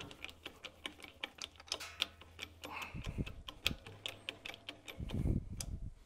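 Irregular metal clicks and ticks from a lug crimping tool being handled and tightened down, with two dull thumps about three and five seconds in.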